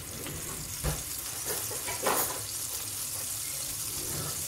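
Ribeye steak searing in oil in a hot cast iron skillet: a steady sizzling hiss, broken by two sharp pops about one and two seconds in, the second the loudest.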